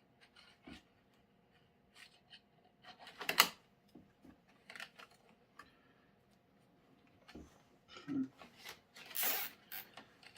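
Handling noises from fastening plastic zip ties around J channel: scattered clicks and rubs, with a sharp click about a third of the way in and a longer rasping burst near the end.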